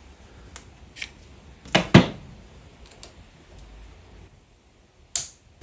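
A few light clicks and knocks of a hand tool and a 3D-printed plastic brake lever clamp being fitted on a mountain bike handlebar, the loudest pair about two seconds in. A short sharp high snap comes near the end.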